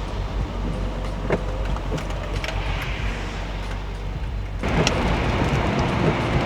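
Car running, a steady low rumble of engine and road noise. About two-thirds of the way in, a louder hiss cuts in suddenly.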